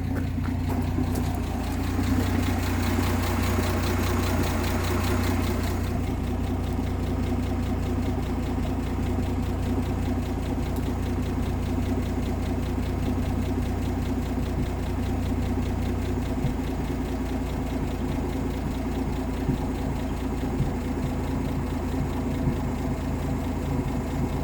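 1958 AMC Rambler Super engine idling steadily on its Weber carburetor while the idle mixture is being set, with no misfire now that the distributor cap has been replaced. A hiss sits over the engine for about the first six seconds, then stops suddenly.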